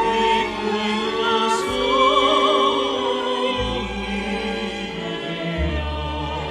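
Operetta duet for tenor and soprano with orchestra: a sung line with wide vibrato over sustained orchestral accompaniment.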